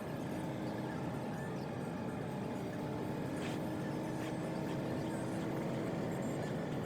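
Steady low rumble of a vehicle driving, with a couple of faint clicks midway.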